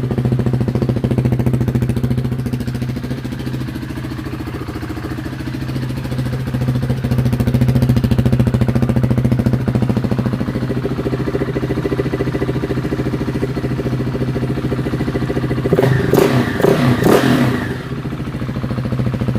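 2020 KTM 690 SMC R's single-cylinder engine idling through a Tekmo titanium header and DVR slip-on exhaust with the dB killer fitted. Near the end it gets a quick run of three or four sharp throttle blips, then settles back to idle.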